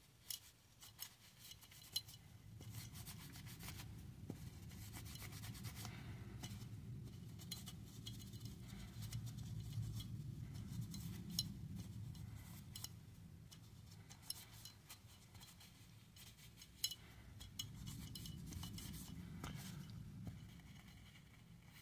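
Folded paper napkin dampened with solvent rubbing back and forth inside a Glock pistol's slide, a faint scrubbing that comes and goes, with scattered small clicks of metal being handled.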